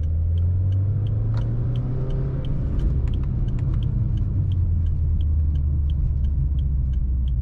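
Cabin rumble of a Subaru Forester tS STI on the move, its turbocharged flat-four running steadily low under road and tyre noise. A light, regular ticking sounds about two or three times a second.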